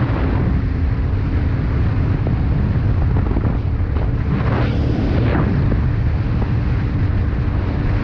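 Yamaha Ténéré 700's parallel-twin engine running as the bike rides along, with wind noise on the microphone. About halfway through, the engine note rises and falls once.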